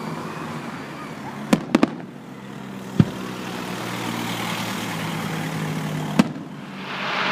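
Fireworks going off: three sharp bangs in quick succession about a second and a half in, single bangs about three and six seconds in, and a hiss building near the end.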